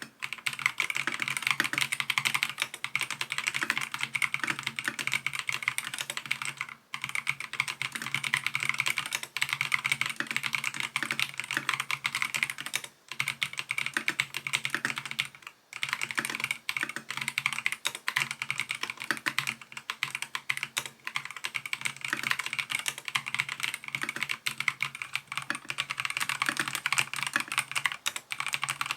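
Fast, continuous typing on an Epomaker TH80-X 75% gasket-mounted mechanical keyboard: rapid keystroke clicks with a few brief pauses.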